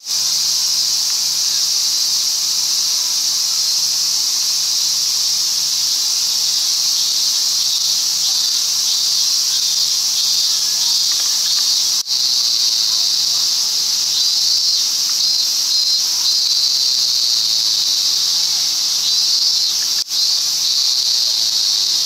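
Cicadas shrilling in a loud, steady, high-pitched chorus, with a second, pulsing insect call coming and going over it in the latter part.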